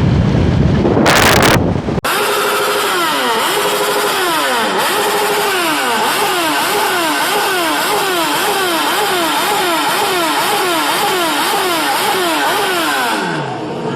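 A loud rush of noise for about two seconds, then a motorcycle engine revved up and down over and over, its pitch climbing and falling in quick repeated sweeps before it drops back near the end.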